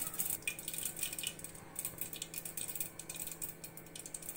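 Mustard seeds popping in hot coconut oil under a glass pan lid: an irregular crackle of sharp clicks as the seeds burst and spit against the lid. This is the tempering stage, where the seeds splutter before anything else goes in.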